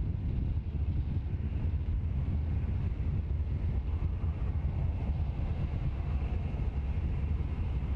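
Falcon 9 rocket's nine-engine first stage during ascent, heard as a steady low rumble.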